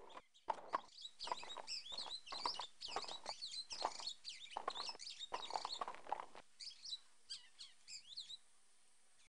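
A horse's hooves clip-clopping at a walk, with birds chirping over them. The hoofbeats stop about six seconds in, and the chirping goes on a little longer.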